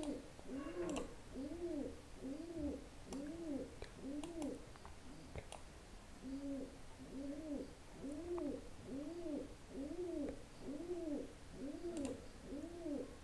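A pigeon cooing over and over, a low rising-and-falling coo roughly every three-quarters of a second, with a short break about five seconds in. A few faint clicks sound now and then.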